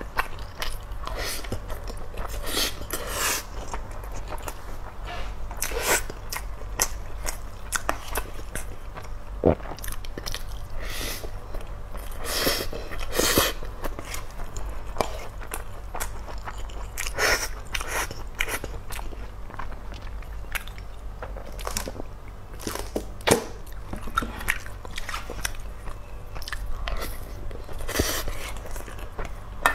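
Close-miked eating sounds: a plastic spoon scraping and clicking against a stainless-steel pot as mixed rice is scooped up, with chewing between mouthfuls. The clicks come irregularly, several to a few seconds.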